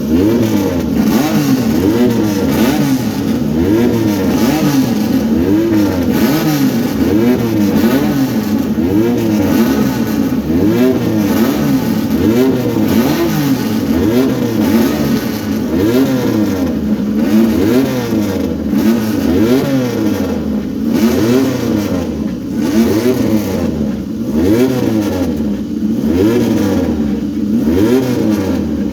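Several Triumph three-cylinder motorcycle engines revving together, loud, their throttles blipped over and over so the overlapping engine notes rise and fall about once a second.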